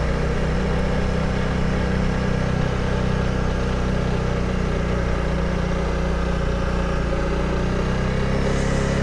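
Honda CRF300 Rally's single-cylinder four-stroke engine running at low, steady revs as the motorcycle rides slowly along.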